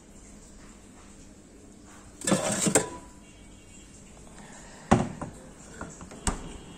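Rummaging in a refrigerator: a short clatter and rustle of dishes and plastic bags about two seconds in, then two sharp knocks a second and a half apart as things are taken out and the fridge is shut.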